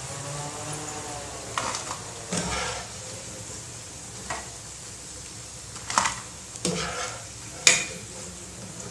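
Hot oil sizzling in a pan of deep-frying bread pakodas. A wire-mesh skimmer scrapes and clinks against the pan and the steel plate about half a dozen times as the fritters are lifted out, the loudest clink near the end.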